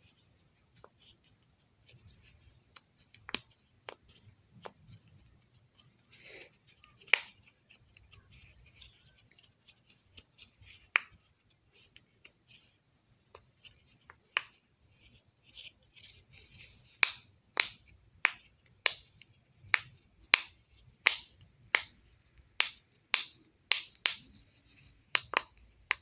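Bubbles of a silicone push-pop fidget toy being pressed one after another, each giving a short sharp pop. The pops are scattered and faint at first, then about two thirds of the way through they come in a steady run of louder pops, about two a second.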